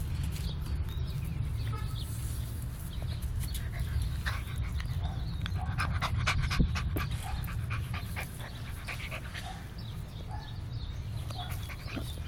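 Puppies panting and giving short high whimpers, with many small clicks and scratches, over a steady low rumble.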